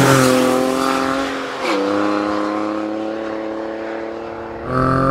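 Morgan Super 3's three-cylinder engine running at steady revs, its pitch dropping suddenly about one and a half seconds in, then holding steady while slowly getting quieter. Near the end it rises again in pitch and loudness.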